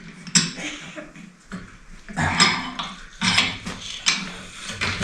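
Blacksmith's post vise being cranked on its screw, fitted with a new forge-welded thrust washer: several sharp metal clanks and knocks from the handle, screw and washer. The screw turns without grating, the sign that the missing washer was the cause of the binding.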